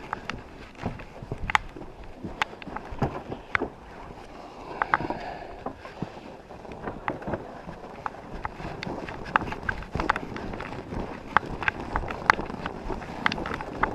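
Gusting wind buffeting the microphone, with irregular sharp clicks and crunches throughout.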